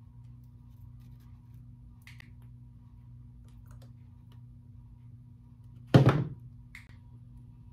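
Plastic Christmas ornament balls being handled and pressed into place on the arrangement: faint clicks, then one loud thunk about six seconds in. A steady low hum runs underneath.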